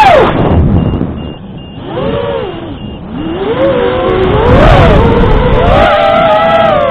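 FPV drone's motors whining, the pitch swooping up and down with the throttle. It drops sharply at the start, sinks lowest about a second and a half in, then climbs and stays high through the second half.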